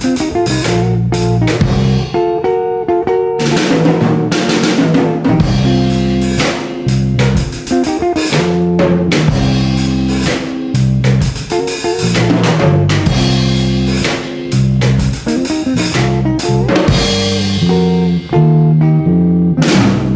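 Background music with a drum kit and guitar, playing at a steady beat.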